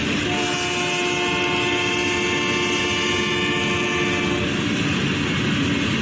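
Norfolk Southern freight train of tank cars and hopper cars rolling past, with a steady rumble of wheels on rail. Over it a sustained multi-note tone holds for about four seconds, then fades out.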